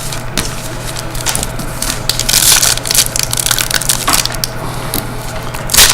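Crinkling and crackling of a trading-card pack wrapper being handled and torn open, with cards rustling. The loudest crinkles come about two and a half seconds in and just before the end.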